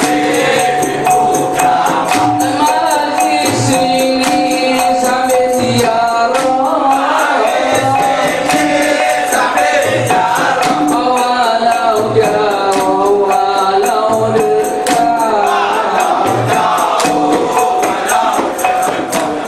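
Dikir barat troupe singing in chorus, with a low drum beat about once a second and sharp percussion strikes.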